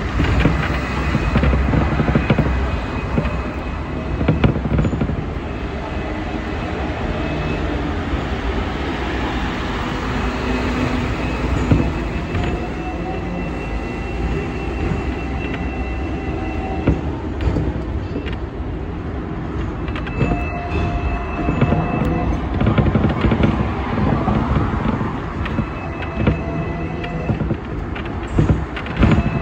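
Hong Kong seventh-generation tram running along street track, heard from on board: a steady rumble of steel wheels on the rails under the car, with faint high whining tones that come and go from its AC drive.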